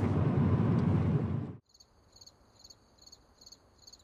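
Loud, steady rumbling outdoor noise cuts off suddenly about one and a half seconds in. It gives way to faint crickets chirping in short, evenly repeated pulses.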